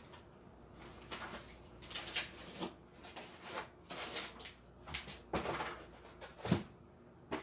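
Faint handling sounds: light rustling and scattered soft clicks of paper and small accessories being taken out of a printer's accessory box, with one sharper click about six and a half seconds in.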